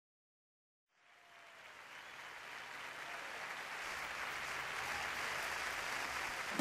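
Audience applauding, fading in from silence about a second in and growing steadily louder.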